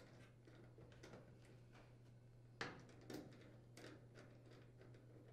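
Near silence over a low steady hum, with a few faint metallic clicks about two and a half to three seconds in: a screwdriver and a ring-terminal lug being set on a screw of the dryer's power-cord terminal block.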